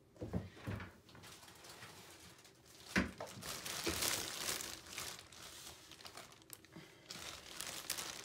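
Clear plastic sheeting crinkling and rustling as it is handled, with a single sharp knock about three seconds in.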